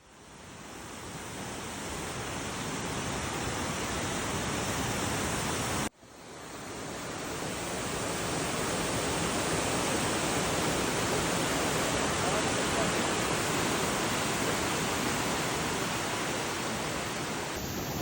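Mountain stream water rushing over rocks: a steady, even hiss. It fades in at the start, cuts out abruptly about six seconds in, and fades back in.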